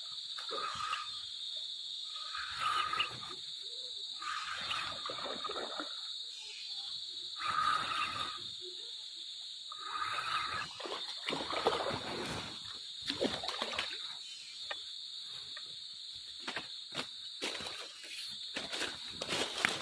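Steady high-pitched buzzing of insects, with irregular splashing of water every few seconds.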